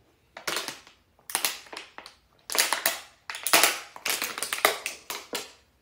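Thin plastic water bottle crackling and crinkling in repeated short bursts as it is gripped and drunk from.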